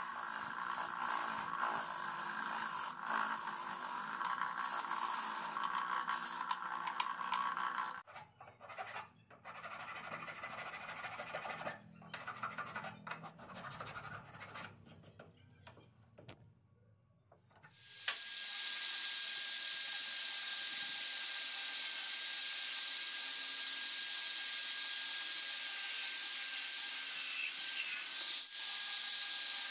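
A disc sander runs while a small wooden part is sanded against the disc. About eight seconds in it stops, and a hand file scrapes a wooden piece in a vise in quieter, irregular strokes. About eighteen seconds in a drill press starts and runs steadily as it bores into a small wooden block, with a thin steady whine over the noise.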